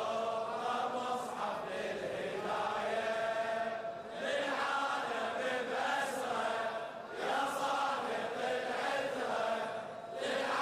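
Voices chanting the refrain of a Shia latmiya (mourning eulogy) in long sung phrases, each breaking off about every three seconds.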